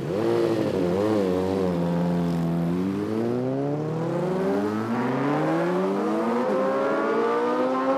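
Racing motorcycle engine blipping its throttle a few times, then pulling away with its pitch rising steadily over several seconds.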